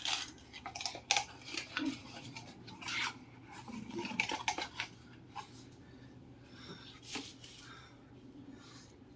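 Hands handling a plastic digital clock: scattered light clicks and plastic rubbing, with quieter stretches between.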